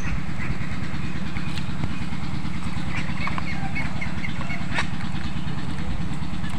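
Steady low rumble of an engine running without change, with a faint click or two.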